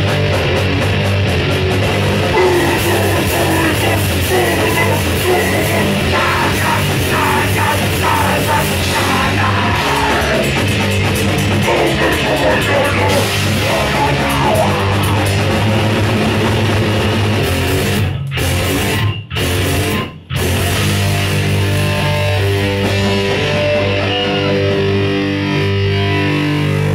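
Crust punk band playing live at full volume: distorted electric guitar, bass and drums with shouted vocals. About eighteen seconds in the music stops dead three times in quick succession, each for a fraction of a second, then comes back with held guitar and bass notes.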